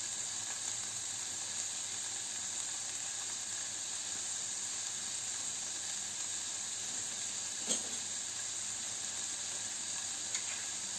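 Diced chicken and onion sizzling steadily in a nonstick frying pan over a low flame as the chicken lets out its juices. One short click comes about two-thirds of the way through.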